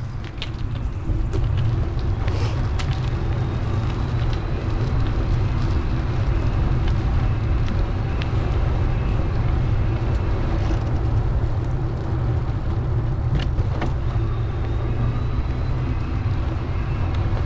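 Steady low rumble of a ride along a city street, road and traffic noise, with a few scattered clicks.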